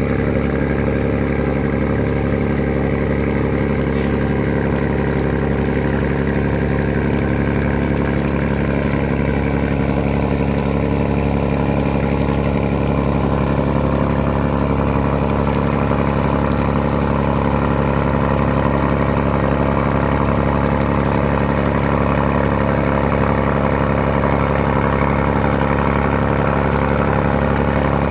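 A ferry's engine running steadily at one constant speed, a low, even hum that does not rise or fall.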